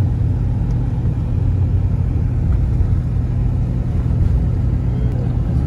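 Steady engine and tyre noise of a 2004 CI Riviera motorhome on the move, heard from inside the cab as an even low drone.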